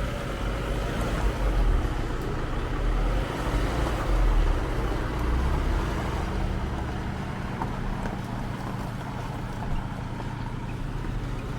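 Car driving: a steady low engine and road rumble with no sudden events.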